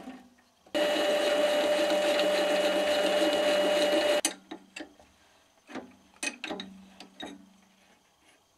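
Mini lathe running with a steady motor whine as the spinning bolt blank is worked, stopping abruptly about four seconds in. Scattered metal clicks and clinks follow as the part and tools are handled.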